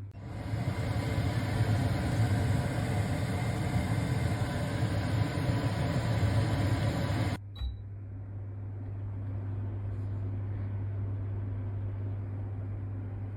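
Falmec kitchen range hood extractor fans running at high speed: a loud, steady rush of air with a low hum. About seven seconds in it cuts off with a short click and beep, and a second hood, the quieter Falmec NRS noise-reduction model, carries on with a much softer, steady rush.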